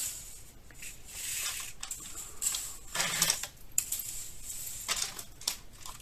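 Thin metal ball chain clinking and rattling as it is handled in the fingers, with irregular light clicks and rustles.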